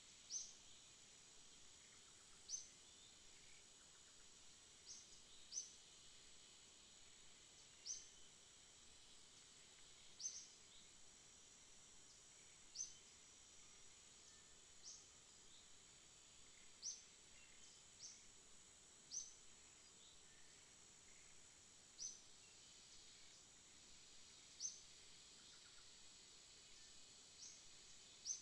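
Faint outdoor ambience: a small animal gives a single short, high chirp about every two to three seconds over a steady high-pitched hiss.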